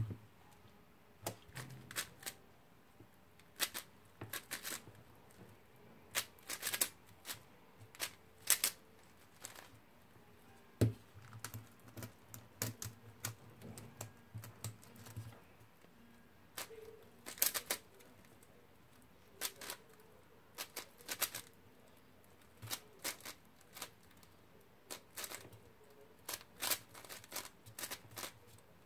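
QiYi Wushuang 5x5 speedcube being turned fast by hand: quick runs of plastic clicking and clacking as its layers snap round, in irregular bursts with short pauses between.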